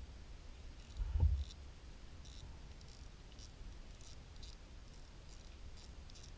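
Fishing reel being cranked as a small fish is reeled in, giving light, irregular clicks about twice a second. A low, dull knock about a second in is the loudest sound.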